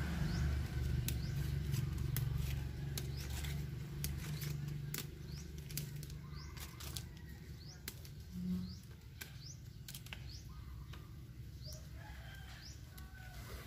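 Leaves being plucked by hand off the stem of a young mai (Ochna integerrima) seedling: a run of crisp snaps and rustles. Short rising chirps sound now and then in the background.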